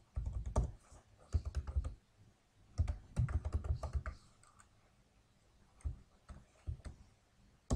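Computer keyboard typing: quick runs of keystrokes for about four seconds, then a few scattered key clicks, one sharper click near the end.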